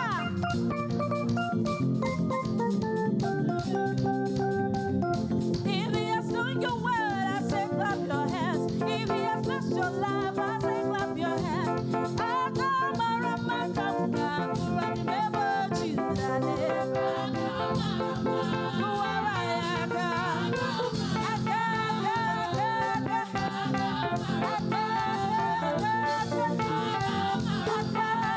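Live church praise music: voices singing over organ-like keyboard chords, with steady percussion.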